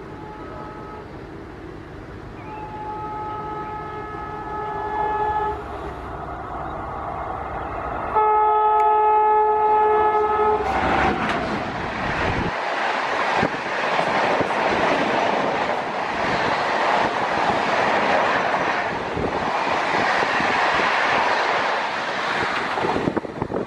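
Electric locomotive horn sounding two long blasts as the train approaches, the second louder. Then the passenger train passes close at speed, with a loud steady rush of wheel and air noise from its coaches.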